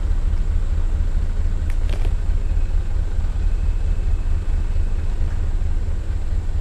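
Diesel truck engine running at a low, steady pitch.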